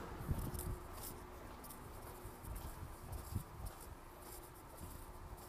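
Soft, irregular footsteps and light rustling from a handheld recording device as someone walks, over a faint steady hum.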